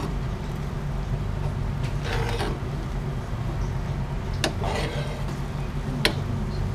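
A metal spoon stirring in a cooking pot and knocking against it twice, sharply, over a steady low hum.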